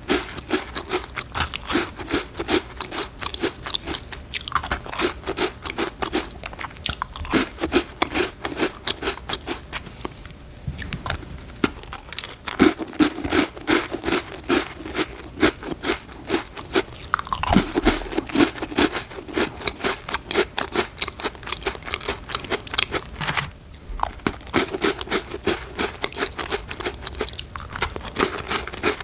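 Close-miked eating of Danish butter cookies: a dense run of crisp crunches and chewing, broken by a few short pauses between bites.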